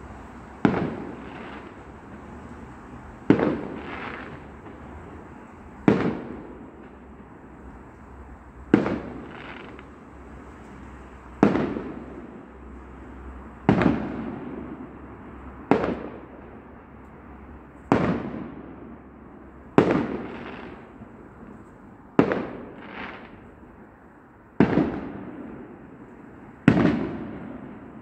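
Aerial firework shells bursting, a bang about every two seconds, each trailing off in an echo; some bangs are followed by a softer second pop.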